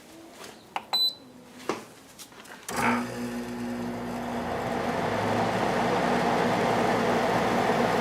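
Soleus Air through-the-wall air conditioner switched on: a couple of clicks and a short high beep about a second in, then the unit's fan starts near three seconds and runs as a steady whoosh with a low hum, growing louder as it spins up.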